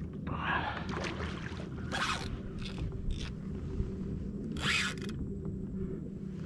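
Spinning fishing reel rasping in about five short, irregular bursts as a hooked redfish is fought, over a steady low rumble.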